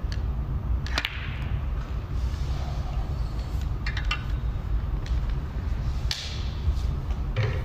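Snooker cue tip striking the cue ball with a sharp click about a second in, followed by several more sharp ball clicks around four seconds in, over a steady low hum.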